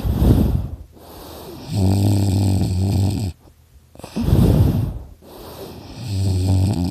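A person snoring in their sleep, with a whistling nose, over two breaths. Each breath is a short loud noisy puff followed by a low buzzing snore of about a second and a half. The snorer puts the snoring down to extra tissue in the throat.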